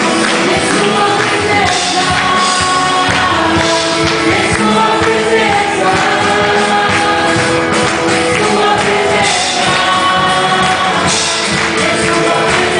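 Live worship music: a band with voices singing together, loud and continuous.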